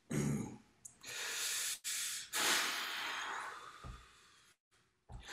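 A man's heavy, forceful breathing: about four deep breaths through the mouth, the last one long, as an actor works himself up just before delivering an angry line.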